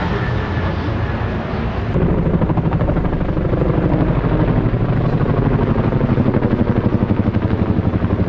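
A passing turboprop drones steadily for the first couple of seconds. Then a formation of military helicopters takes over, led by a tandem-rotor CH-147F Chinook: a loud, rhythmic beat of rotor blades that builds and holds overhead.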